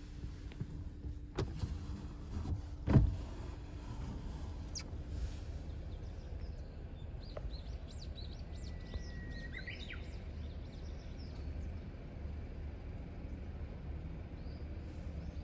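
Japanese bush warbler (uguisu) singing: one long held whistle followed by a quick upward flourish, about two-thirds of the way through, with small birds chirping around it over a steady low outdoor rumble. A loud thump about three seconds in.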